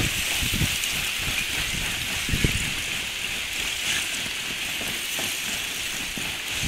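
Lake ice shove: a sheet of breaking, melting lake ice pushed ashore by the wind, grinding and crackling continuously with scattered low knocks, one louder about two and a half seconds in, over a steady hiss.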